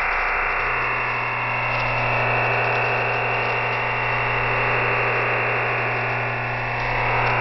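EasyDRF OFDM digital data transmission of Shortwave Radiogram received over shortwave on 5850 kHz, sounding as a steady dense rushing hiss with slow fades drifting through it and a low steady hum beneath.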